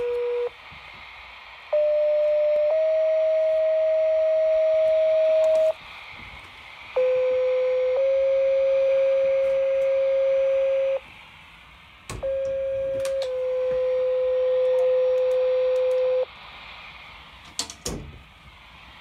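Two-tone sequential paging tones from a handheld radio's speaker, setting off fire department pagers for a monitor test: three tone pairs, each a short tone of about a second stepping to a longer tone of about three seconds, with radio hiss between them. The end of an earlier tone cuts off about half a second in.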